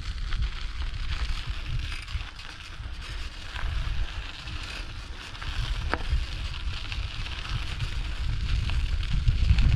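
Bicycle ridden along a forest track: tyres crackling over the ground, with low wind rumble on the microphone and a sharp click about six seconds in.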